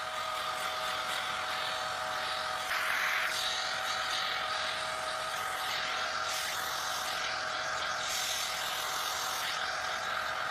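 Steady machine whir and rushing air of equipment inside the International Space Station, with two steady tones. The hiss swells for a moment a few times.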